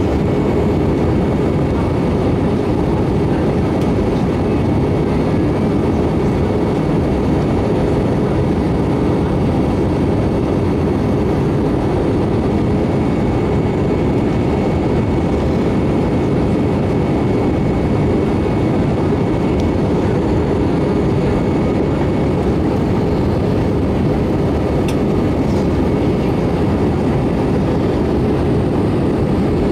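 Steady cabin noise of an Airbus A320 in flight, heard from a window seat beside the engine: an even, low engine and airflow roar with a faint high whine that fades out near the end.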